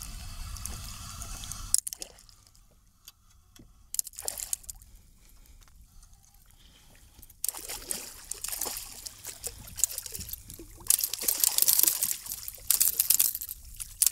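Water splashing and trickling in irregular bursts, building up in the second half and loudest near the end.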